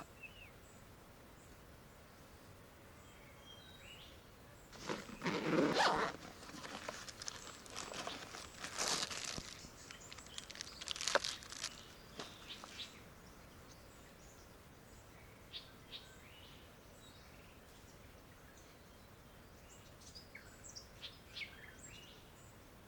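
Quiet rainforest ambience broken about five seconds in by several seconds of close rustling and crunching, then a few faint high bird chirps near the end.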